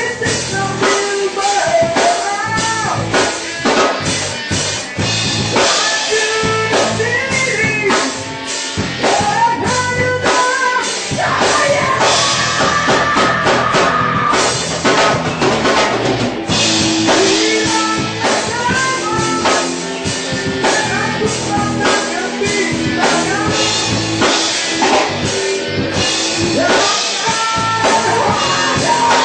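Live rock band playing: a man singing over electric guitars and a drum kit with cymbals.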